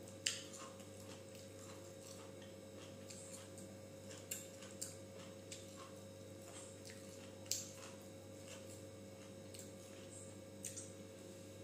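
Fingers mixing rice and curry on a steel plate: scattered short, sharp clicks of fingertips against the plate, the loudest just after the start and again past the middle, over a faint steady hum.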